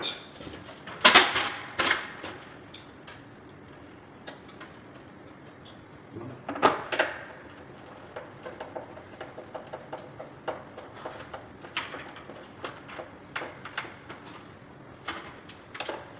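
Clicks and knocks from hands working on the parts of a split air-conditioner indoor unit during a fan motor refit: two sharper knocks about a second in, another about seven seconds in, then a run of light, irregular clicks.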